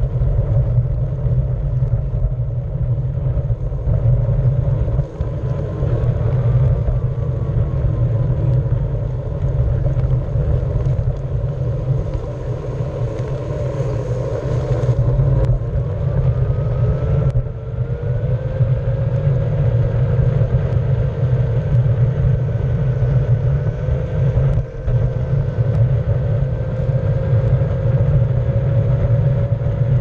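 Onewheel electric board rolling over concrete pavement: a steady, heavy rumble from its fat tyre on the rough surface, with the hub motor's whine rising and falling as the speed changes.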